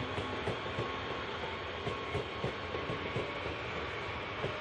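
Incheon Subway Line 1 electric multiple unit rolling along the tracks, its wheels clacking over the rails a few times a second against a steady running rumble, with a faint steady whine.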